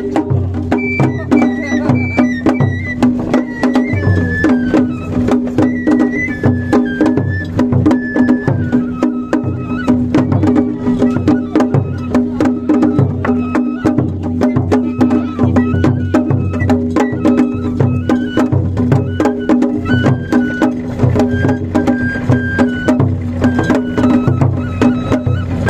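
Japanese festival float music (matsuri-bayashi): a large taiko drum is beaten in a steady rhythm with sticks, sharp clicking strikes run through it, and a high flute melody steps from note to note above.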